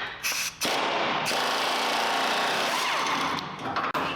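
Pneumatic impact wrench hammering on the pickup's last rusted bed bolt. After a few short bursts it runs steadily for about three seconds, then stops as the bolt snaps.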